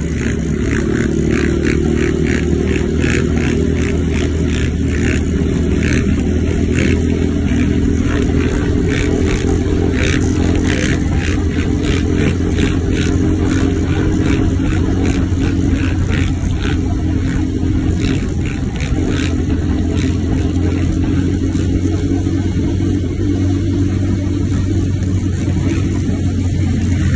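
Motor vehicle engines running steadily at road speed, with wind and road noise. A quick, regular ticking rides on top until about twenty seconds in.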